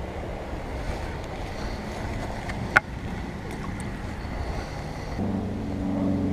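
Wind and water noise on the microphone, with one sharp click about three seconds in. A steady low hum joins about five seconds in.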